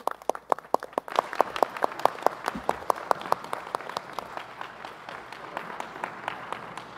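A small crowd applauding, with a few close, sharp hand claps standing out from the rest, thinning out over the last few seconds.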